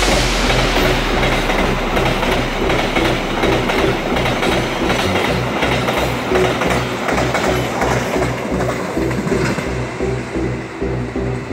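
Cement freight train of covered wagons passing fast and close, its wheels clattering over the rail joints, the noise easing slightly near the end as the last wagon goes by.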